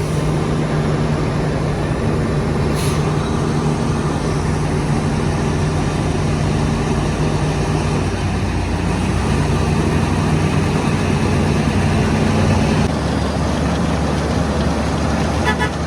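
Heavy diesel engine of a road construction machine running steadily, its pitch rising a little about nine seconds in, with a short hiss of air about three seconds in.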